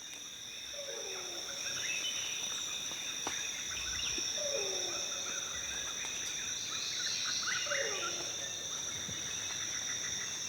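Tropical rainforest ambience: a steady high insect drone with scattered bird chirps. A low, descending call sounds three times, about three seconds apart.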